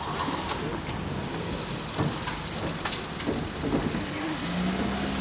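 An engine idling with a low steady hum under a hiss of outdoor noise, with a couple of sharp knocks about two and three seconds in.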